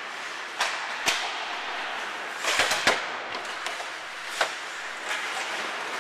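Ice hockey play: sharp cracks and knocks of sticks and puck striking each other and the boards, several in quick succession about two and a half seconds in, over the steady scraping hiss of skates and rink noise.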